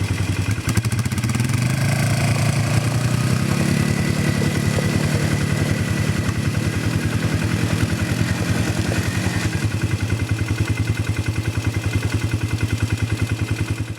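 ATV engine running steadily while being ridden over a rocky road, with some clatter; the engine grows somewhat louder from about two seconds in and eases back near nine seconds.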